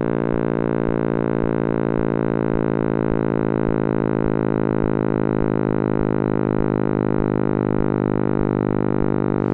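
Synthesized 'sound of the Big Bang' audio: a steady electronic drone of many sustained tones stacked together, with a low pulse repeating a little under three times a second, cutting off suddenly at the end.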